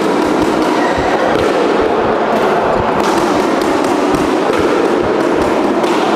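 Busy badminton hall ambience: a steady murmur of many voices with frequent short thuds and sharp taps from play and footsteps on the courts.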